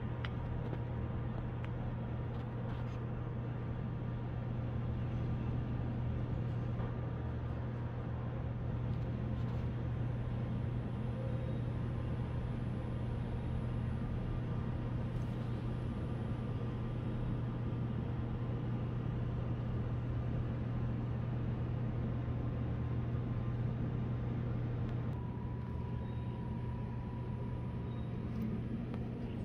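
Steady low mechanical hum over an even hiss, with a faint thin tone that grows a little stronger near the end.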